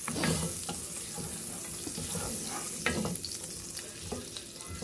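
Butter sizzling steadily as it melts in a hot nonstick frying pan over a strong gas flame, stirred with a wooden spatula.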